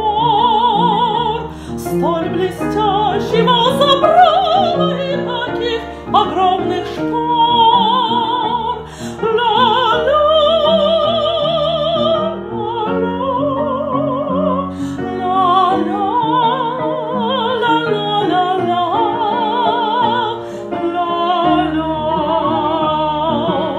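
Upright piano playing chords under a high, sustained melody line with a strong, even vibrato.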